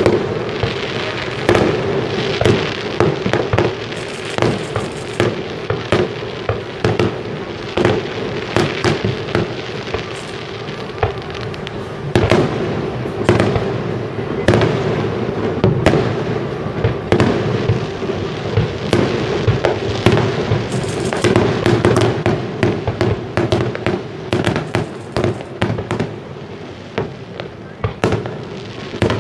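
Aerial firework shells bursting one after another, many sharp bangs and cracks in quick succession.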